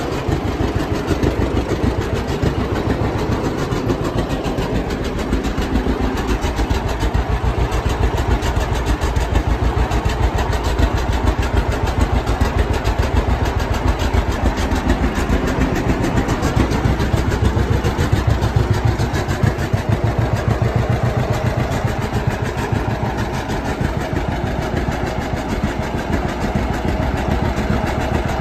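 A 1952 John Deere 60's two-cylinder engine running steadily just after starting, with an even, rapid firing beat.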